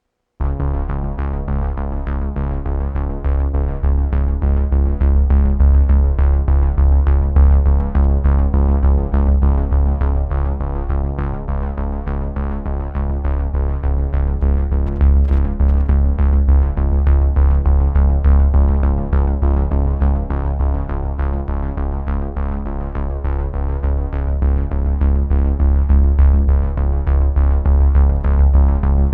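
Electronic music with synthesizer chords, a heavy pulsing bass and a steady drum-machine beat, starting about half a second in after a moment of silence.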